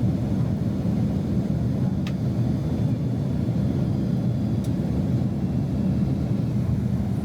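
Steady low rumble of a Boeing 767-300 in flight, heard inside the passenger cabin: engine and airflow noise while descending. Two faint clicks come about two seconds and four and a half seconds in.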